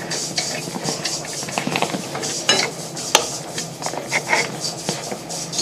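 Jewelry laser welding machine firing irregular pulses, each a sharp tick, over a steady low hum, while filling porosity pits in a gold ring.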